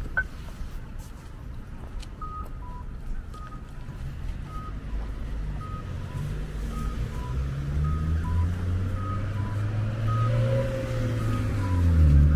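Electronic beeper sounding short two-tone beeps, a higher and a lower note alternating, about a pair each second, over street traffic. A heavy vehicle's engine hum grows steadily louder from about halfway through and is loudest near the end.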